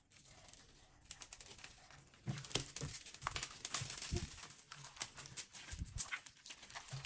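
Slime and small plastic toy tools being handled: a busy run of crackling, clicking and light tapping that starts sparse and grows dense about two seconds in, with a few soft low thuds.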